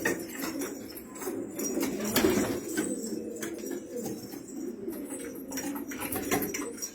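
Domestic pigeons cooing continuously, several voices overlapping, with scattered short clicks and rustles.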